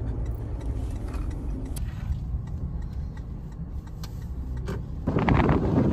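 Car cabin road noise: a steady low rumble of the car driving. About five seconds in, loud wind noise buffets the microphone and drowns it out.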